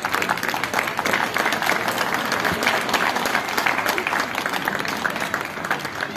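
Crowd of spectators clapping and applauding steadily, a dense patter of many hands.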